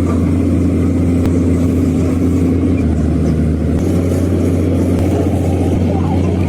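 A machine running steadily with a low, even hum, its pitch shifting slightly a few seconds in.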